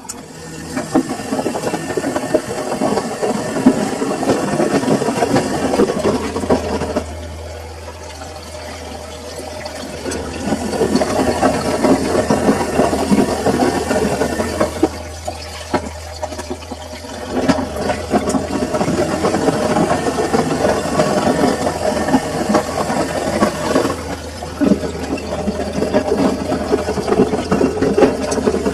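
Samsung washing machine running a full load: the drum turns with rattling and sloshing, easing off twice in short pauses, over a steady low motor hum.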